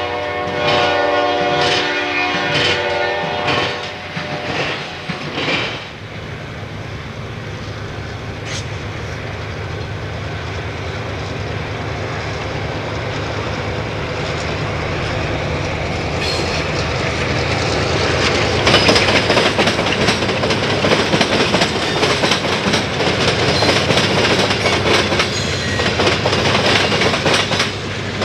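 A freight train horn sounds a chord while Triple Crown RoadRailer trailers pass, and fades out about four seconds in. Then a steady diesel drone builds as a CSX GP38 and B30-7 locomotive consist approaches. From about nineteen seconds the cars pass close by, with the clickety-clack of wheels over rail joints.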